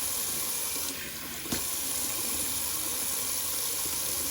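Cold water running steadily from a sink sprayer into the sink, an even rushing hiss. About a second in it briefly softens and then gives a small knock.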